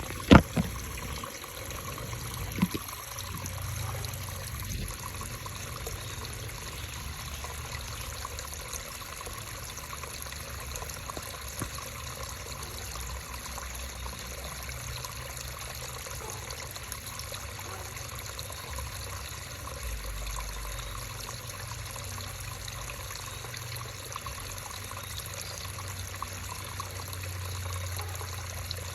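A creek's water running and trickling steadily, with a low rumble underneath. Two sharp knocks stand out near the start, the first about a third of a second in and the second a couple of seconds later.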